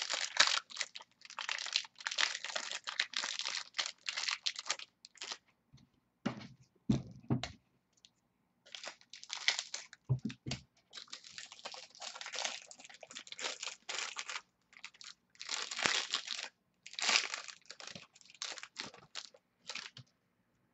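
Plastic wrapping crinkling and tearing as a pack of sports cards is opened, with the cards rustling and sliding as they are handled, and a few dull knocks on the table partway through.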